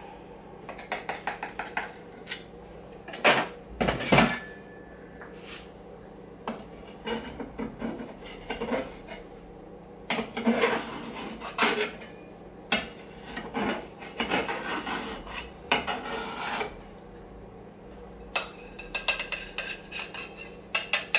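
Metal cake server cutting through a baked oven pancake and scraping along the bottom of a stoneware baking dish: a string of short scrapes, taps and clinks, with the sharpest strokes about three and four seconds in.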